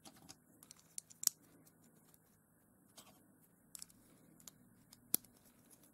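Small Lego-compatible MY Brick plastic bricks being handled and pressed together: a few faint scattered clicks, the sharpest about a second in and another near the end.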